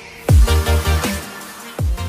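Electronic intro music in a dubstep style: two deep bass drops that sweep down in pitch, about a third of a second in and again near the end, each followed by a pulsing low bass.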